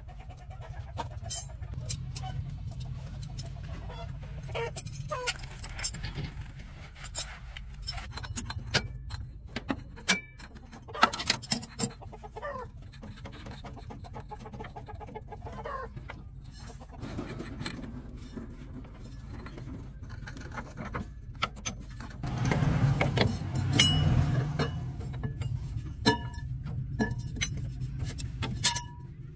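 Metal tools clinking and knocking against a truck's chassis as someone works underneath it, with chickens clucking in the background over a steady low hum. A louder stretch of noise comes about three-quarters of the way through.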